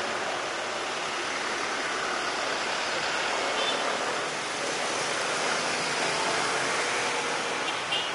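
Steady jet aircraft engine noise at an airport apron: an even rushing sound that swells slightly in the middle, with a brief faint chirp near the end.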